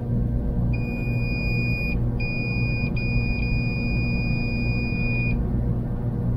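Multimeter continuity beeper sounding a steady high beep three times, a long beep, a short one, then a longer one, as the probes find contact across the hair dryer's mode switch: each beep means a closed circuit between the probed contacts.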